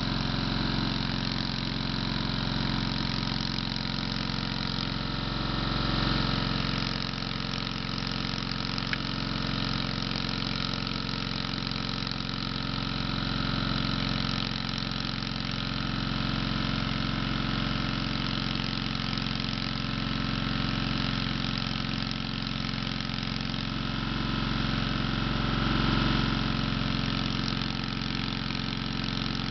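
Small gasoline engine driving a floating hookah-diving air compressor, running steadily at an even speed, its level swelling gently now and then.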